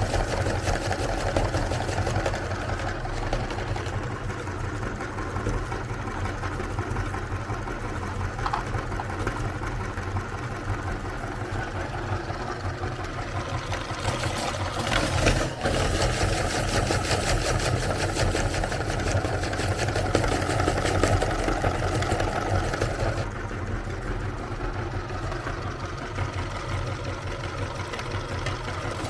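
Electric meat grinder running steadily, a motor hum with a brief interruption about halfway through.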